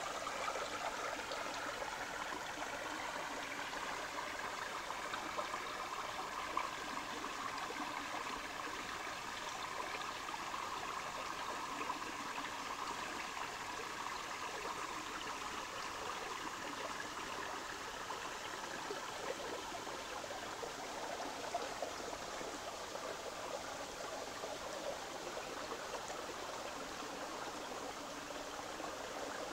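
Shallow brook running over stones and leaf litter: a steady rush of water.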